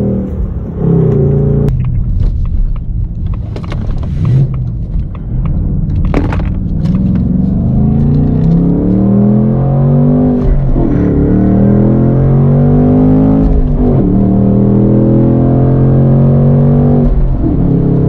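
Ford Mustang S650 GT's 5.0-litre V8 pulling hard from inside the cabin. Its note climbs with the revs and drops back several times, about two, ten and fourteen seconds in, then holds at steady revs.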